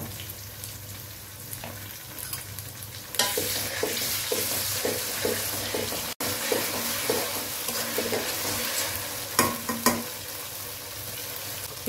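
Sliced onions with ginger, garlic and cumin pastes sizzling in hot oil in a large metal karai, while a metal spatula scrapes and knocks against the pan as it stirs. The sizzle grows louder about three seconds in.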